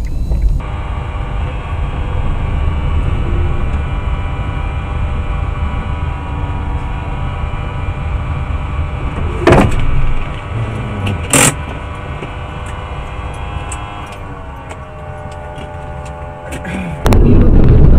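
Inside a car in slow traffic, a steady pitched hum from the engine and cabin, which steps up in pitch about fourteen seconds in. Two sharp knocks come about two seconds apart in the middle, and a louder rough noise starts abruptly near the end.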